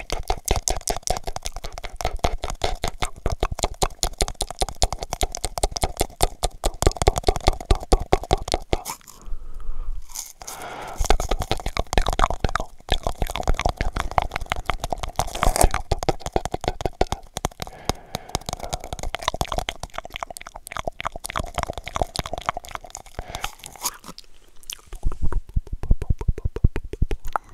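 Mouth sounds made into a cardboard toilet-paper roll held against the microphone: a fast, steady run of clicks and pops, with a brief pause about nine seconds in. Near the end the tube is gone and the mouth sounds go straight into the microphone.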